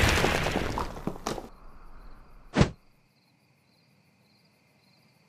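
Cartoon explosion sound effect dying away, followed by a single short, loud thump about two and a half seconds in, then silence.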